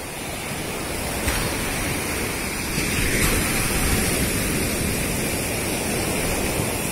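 Steady rush of sea surf washing onto a sandy beach, with wind buffeting the microphone.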